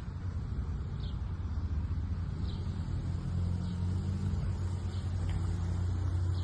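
An engine running steadily with a low hum, and short high chirps about once a second over it.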